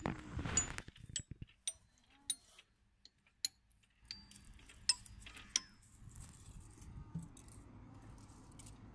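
Small sharp clicks and clinks of hard plastic as a little toy and its packaging are handled, scattered irregularly, with a faint low steady background noise coming in about four seconds in.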